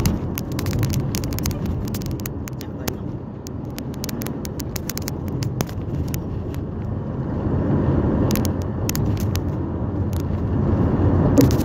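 Car driving along a road, heard from inside the cabin: steady engine and tyre noise that swells a little twice, with many short sharp clicks throughout.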